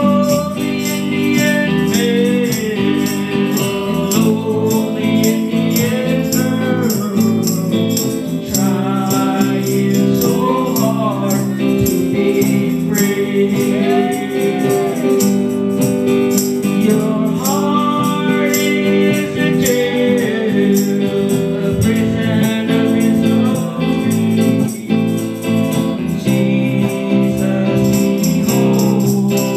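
Live gospel song: a voice singing through a microphone over amplified electric guitars, with a shaken jingling percussion instrument keeping a steady beat.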